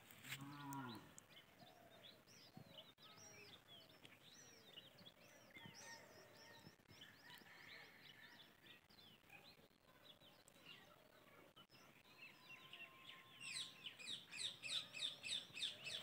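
Faint outdoor birdsong: scattered chirps and short whistled calls, with a cow giving one short low moo right at the start. Near the end a bird's fast run of repeated chirps grows louder.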